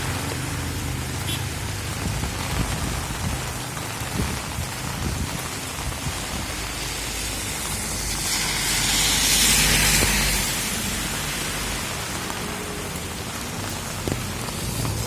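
Heavy rain falling steadily, with the hiss swelling louder for a couple of seconds about two-thirds of the way through.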